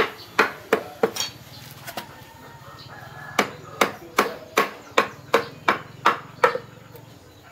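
Repeated hammer blows, about two to three a second, each with a short ringing after it. A run of blows stops about a second in, and after a pause of about two seconds another run of about eight blows follows.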